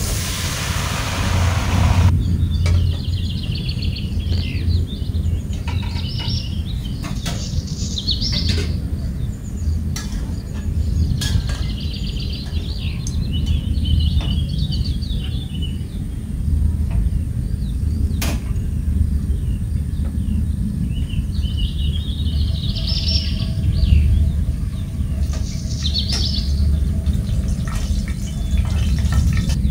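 Small birds chirping on and off over a steady low rumble, with scattered clicks of metal kitchen utensils. A two-second rush of hiss opens the stretch as the water lily stems go into the steaming pot.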